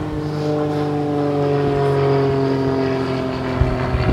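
A steady engine drone from a motor out of shot, its pitch slowly falling.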